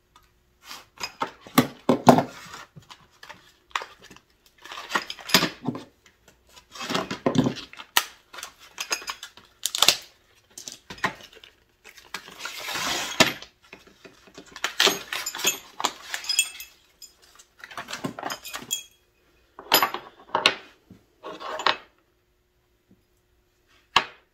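Steel chisels and punches of a three-piece set clinking and rattling against each other as they are handled and unpacked. Irregular clicks and short bursts of handling noise, with a longer noisy stretch about halfway through.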